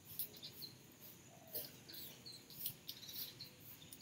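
Faint chirping of insects and birds: many short, high-pitched chirps scattered throughout, with one lower call about a second and a half in.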